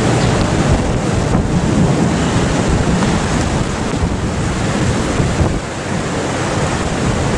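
Strong, gusty monsoon-storm wind rushing through trees and buffeting the microphone with a low, rumbling rush.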